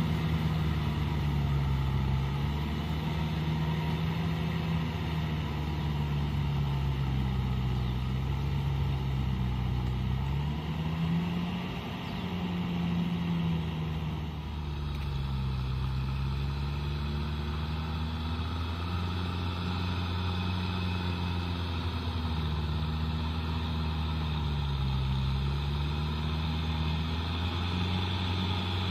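Kubota tractor's diesel engine working a tiller through a flooded, muddy field, its note rising and falling every few seconds with the load.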